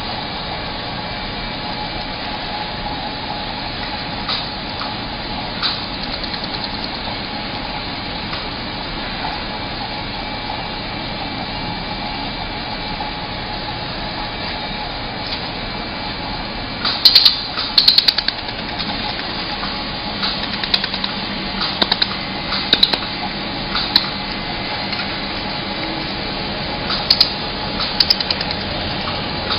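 YAG laser spot welder firing single pulses onto thin metal letter strips: about a dozen sharp snaps, singly and in quick pairs, from about halfway through. Under them runs the machine's steady running noise.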